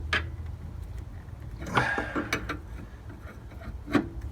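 Wrench working on a VW Beetle brake light switch: a sharp metal click at the start, a short scraping clatter about two seconds in and another click near the end, over a low steady hum.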